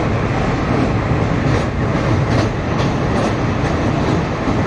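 Passenger train running with a steady rumble, its wheels giving a few clickety-clack clicks over the rail joints in the later part.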